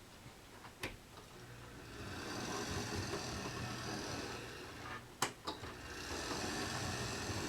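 Model railway locomotive running along the track over a repaired Peco turnout, its small electric motor whirring and swelling in twice, with a sharp click about a second in and another a little past the middle.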